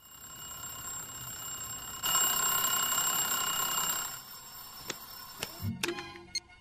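Alarm clock ringing with a steady bell tone of several fixed pitches, louder for about two seconds from two seconds in, then quieter and stopping; a few sharp button clicks follow near the end.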